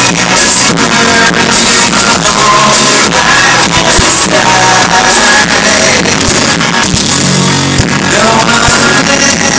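Live rock band playing loudly: electric guitars and drum kit, with a singer.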